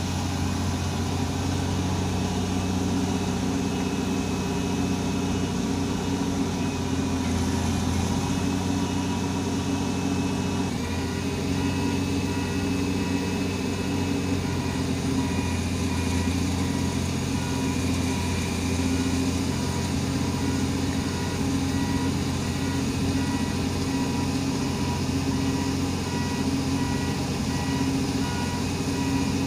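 Heavy diesel engine of a Komatsu excavator running steadily at a constant speed.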